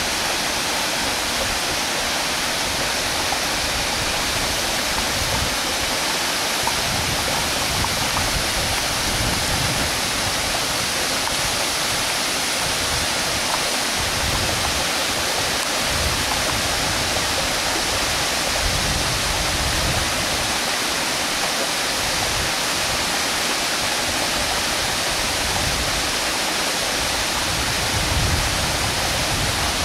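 Steady, even rush of a waterfall and the stream below it, flowing over rocks.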